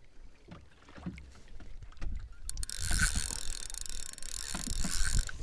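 Water knocking and lapping against the hull of a small boat, with a steady hiss that starts suddenly about two and a half seconds in and cuts off near the end.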